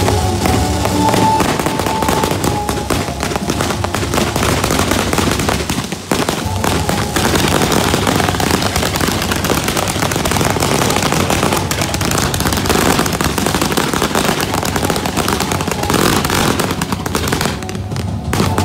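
Low-noise fireworks going off at close range: a dense, continuous crackle of rapid small pops, with a brief lull about six seconds in. Music plays faintly underneath.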